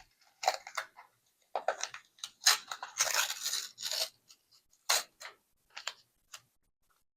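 Tape being peeled off a lever safe lock in a series of short ripping noises, the longest and loudest from about two and a half to four seconds in.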